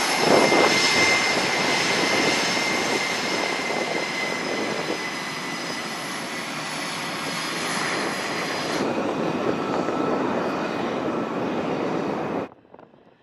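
Twin General Electric F414 turbofans of an EA-18G Growler running at taxi power: a loud, steady jet roar with a high whine over it, cutting off suddenly near the end.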